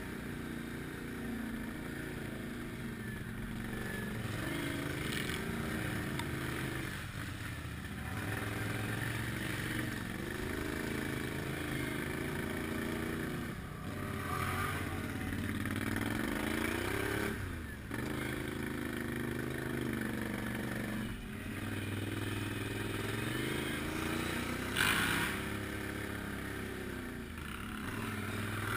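Can-Am Outlander ATV's V-twin engine pulling along a muddy trail, revving up and easing off again and again, with clatter and scraping from the machine over rough ground. A short sharp noise stands out about 25 seconds in.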